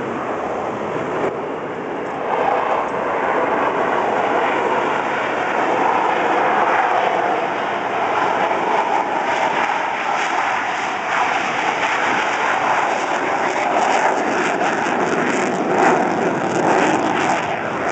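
F-15 Eagle fighter jets' twin turbofan engines at take-off power, a loud steady roar as the jets roll down the runway and lift off.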